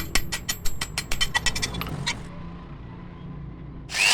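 A quick run of light metallic taps, about eight a second, for roughly two seconds. Near the end a power tool starts up with a loud steady whine.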